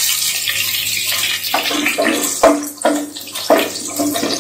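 Hot oil sizzling steadily as whole spices and crushed garlic fry in a pot. From about a third of the way in, a wooden spatula scrapes the pan in short strokes about twice a second.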